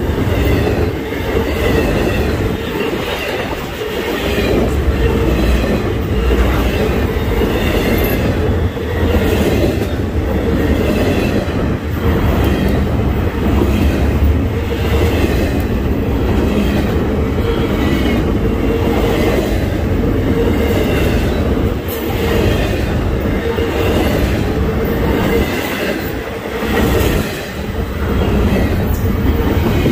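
Freight train cars rolling past steadily, their wheels clicking over the rail joints every second or two, with a wavering high squeal from the wheels at times.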